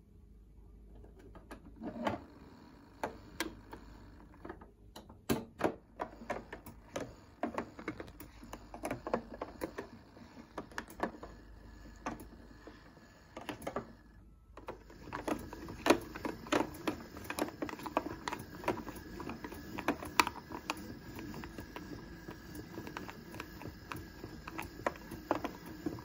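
A 1970s Casdon toy washing machine running its rinse: the drum turns with a low hum and a stream of irregular clicks and rattles, stops for about a second about 14 seconds in, then starts again.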